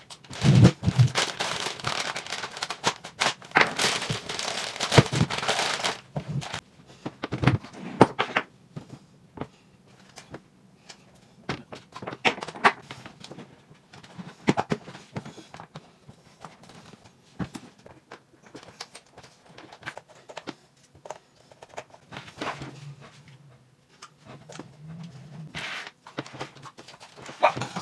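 Plastic bag crinkling as wheels are pulled out of it, then scattered clicks and knocks of plastic RC truck wheels and parts being handled and fitted onto the chassis on a wooden table.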